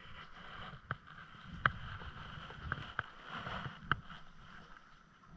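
Water lapping and sloshing against a floating dock, with about five sharp clicks or knocks at uneven intervals and a low rumble of wind on the microphone.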